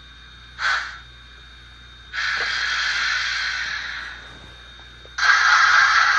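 Recorded steam hiss from the QSI Titan-U sound decoder of a brass C53 model steam locomotive, played through its small speakers while the model stands still. A short puff of hiss comes just under a second in, then a longer hiss from about two seconds that fades away, and a loud steady hiss starts about five seconds in.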